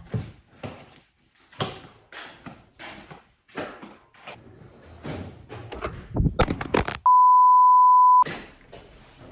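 Cardboard boxes and packaging being handled and torn open, a run of scrapes, rips and knocks. About seven seconds in comes a loud steady one-second beep at one pitch, a censor bleep.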